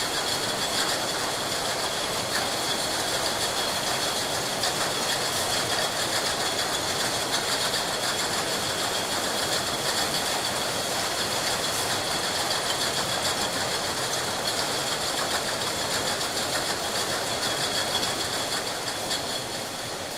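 Glass bottles clinking and rattling against one another in a dense, continuous clatter, with steady factory machine noise and a high ringing tone underneath. It eases slightly near the end.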